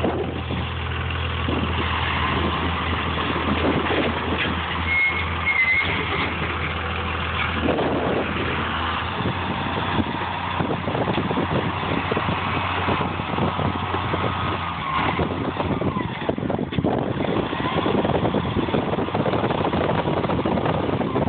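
Burning stack of hay bales crackling and popping over the steady hum of an engine, which fades about fifteen seconds in, with a brief high squeal about five seconds in.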